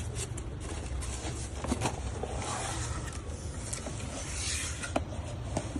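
Packaging and earbuds being handled: scattered light clicks and a short papery rustle about halfway through, over a steady low rumble.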